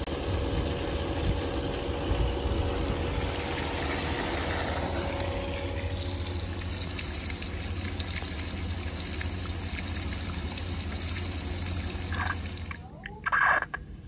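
Above-ground pool sand filter pump running on its waste setting to drain pool water: a steady motor hum with water rushing and pouring from the discharge hose onto grass. It cuts off suddenly about 13 seconds in, followed by a couple of short animal calls near the end.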